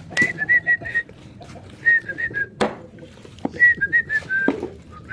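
A person whistling a tune in short phrases of quick notes, with a few sharp knocks between the phrases, three of them about a second apart in the middle.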